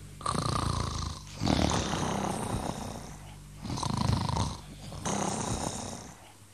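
People snoring in their sleep: a repeating cycle of loud, rough snores with short pauses between them.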